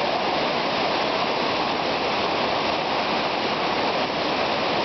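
Fast-flowing floodwater rushing steadily, a current strong enough to carry a car along.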